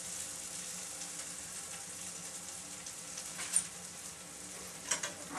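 Food sizzling in a frying pan, a steady hiss, with a couple of brief knocks or scrapes of a utensil about three and a half seconds in and again near the end.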